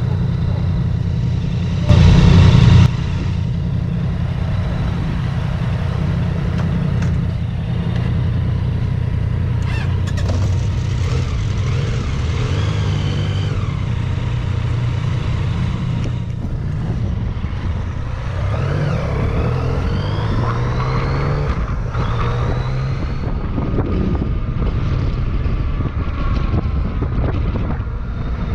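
Motorcycle engine running at low speed, then revving up with its pitch rising several times in a row past the middle, as the bike pulls away and accelerates. A brief loud rush of noise about two seconds in.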